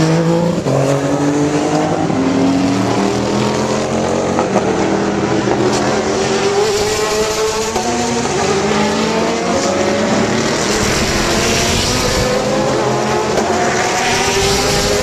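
Race car engines at full throttle as several cars accelerate past. Their engine notes climb in pitch and drop back at each upshift, overlapping one another throughout.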